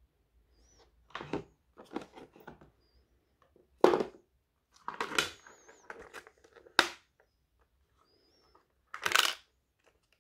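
Hard plastic parts of an electric lunch box being handled: irregular clicks, knocks and rattles as the container, lid and clip latches are moved, with a few brief high plastic squeaks.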